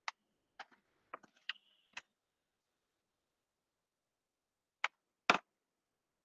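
Sharp clicks and taps from handling things at a desk: about five quick clicks in the first two seconds with a brief faint high tone, then two more a few seconds later, the second a louder thump.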